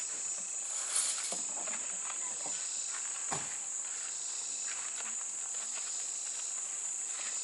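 Insects chirring in a steady high-pitched chorus, with a few faint clicks and rustles, the most noticeable about one second and three seconds in.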